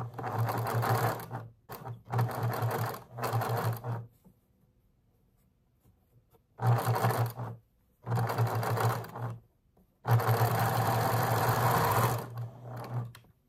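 Domestic electric sewing machine stitching seams in patchwork pieces in about six short runs of one to two seconds each, with quiet gaps between them and a longer pause about four seconds in.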